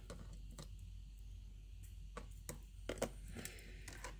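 Faint, scattered little clicks and handling noises from a thin metal necklace chain being untangled by hand over a cardboard box, with a steady low hum underneath.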